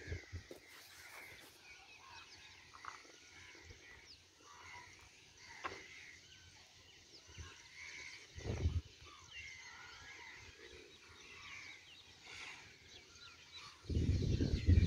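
Outdoor village ambience with small birds chirping on and off. Near the end a cow starts lowing loudly.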